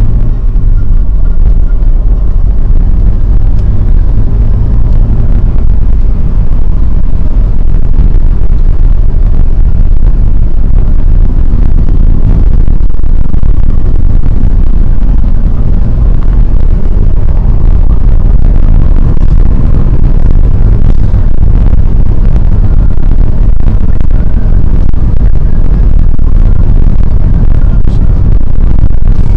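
Car driving in the rain: a loud, steady low rumble of engine and tyres on the wet road.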